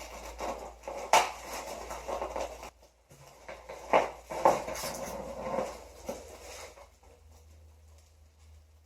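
Packaging being handled and unpacked: rustling of packing material with a few sharp knocks and clinks, dying down over the last few seconds.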